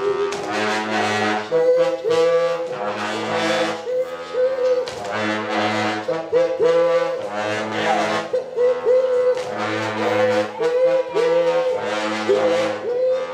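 Live music from an African ensemble: a short phrase scooping up to the same high note again and again, over low held notes that shift every second or so.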